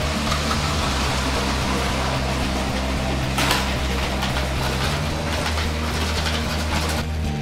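Battery-powered Lego trains running on plastic track, a whirring, rattling noise that flares about three and a half seconds in as the trains pass close and drops away near the end. Background music with steady low notes plays under it, changing chord about halfway.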